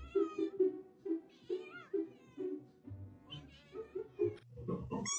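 A cat meowing a few times, with the loudest meows near the end, over background music of short repeated notes.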